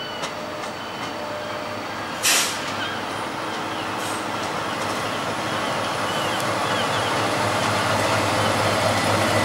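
Colas Rail Class 70 diesel locomotive approaching and passing with a loaded log train, its engine and the train's running noise growing steadily louder. A short, loud hiss comes about two seconds in, and faint high squeaks come now and then during the pass.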